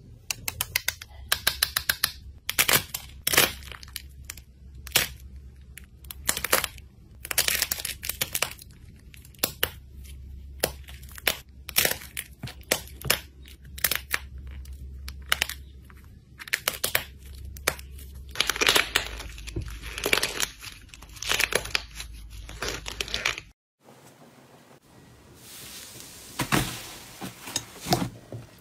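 Crunchy-shell slime balls squeezed between the fingers, the hardened coating cracking and crinkling in quick clusters of crackles and clicks. Near the end, after a sudden break, softer tearing and crackling as thick fluffy slime is pulled apart in a bowl.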